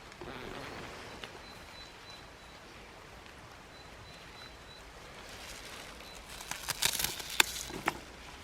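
Quiet outdoor ambience, then from about five seconds in rustling and a run of crisp snaps and clicks, loudest about seven seconds in: wild garlic (ramsons) being picked, with its stalks cut and the leaves trimmed off.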